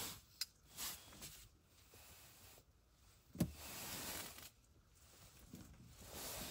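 Faint rustling and shuffling with a few soft knocks and clicks: handling noise from someone moving about and working an ice-fishing rod, with a sharper knock about halfway through.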